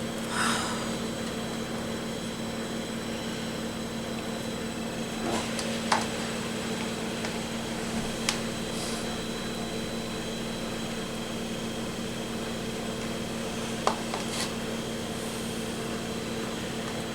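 Steady room hum with a constant low tone, like a fan or electrical hum, and a few brief clicks and taps scattered through it.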